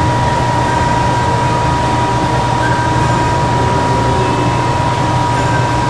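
Steady background hum and hiss with a constant high tone, unchanging throughout.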